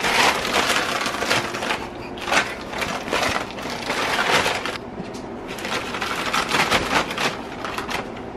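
Brown paper bag crinkling and rustling in irregular bursts as a cat wriggles and rolls with its head inside it, with a short lull about five seconds in.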